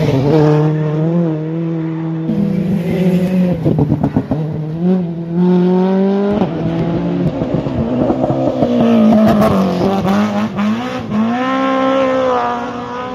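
Rally car engines revving hard, one car after another, the pitch climbing and dropping with the gear changes and switching abruptly from one car's sound to the next.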